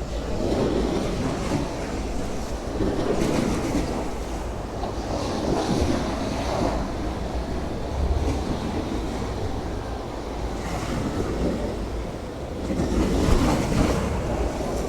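Sea waves washing in and breaking, swelling in surges every few seconds and loudest near the end, over a low rumble of wind on the microphone.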